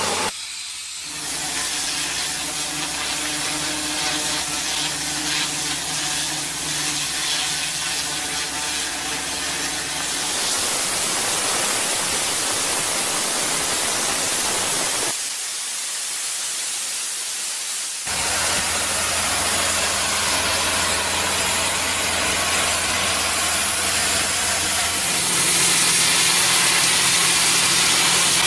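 High-pressure water jet hissing steadily, with a motor's steady hum underneath in stretches. The sound changes abruptly several times.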